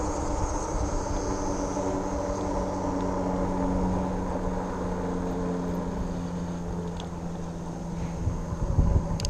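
RadRover fat-tire e-bike riding on a paved path: a steady hum of its rear hub motor and fat tyres rolling on asphalt, with a few held tones. Near the end, wind buffeting on the microphone grows louder.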